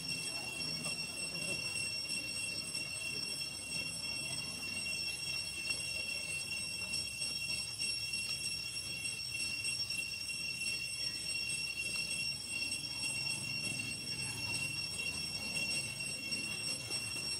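Steady high-pitched insect drone, several thin unbroken tones held throughout, over a low outdoor rumble.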